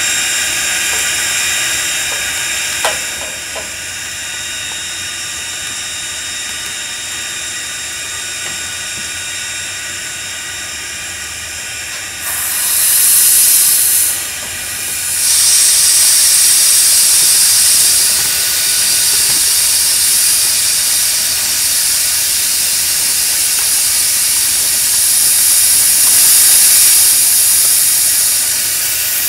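Strasburg Rail Road No. 90, a 2-10-0 steam locomotive, hissing steadily while it stands coupled to its freight cars, with a single clank about three seconds in. About twelve seconds in, a much louder hiss of escaping steam starts, breaks off for about a second, then resumes and carries on wavering.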